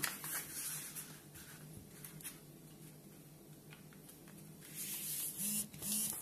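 Origami paper rustling and rubbing against a tabletop as it is folded in half into a triangle and the crease pressed flat by hand, with a louder hissing rub about five seconds in.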